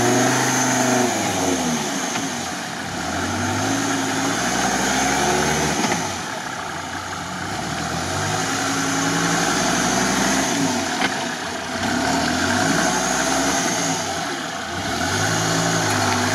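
Off-road prototype buggy's engine revving hard and dropping back in four or five surges, about every three to four seconds, as it pushes through deep water. A steady wash of splashing water runs underneath.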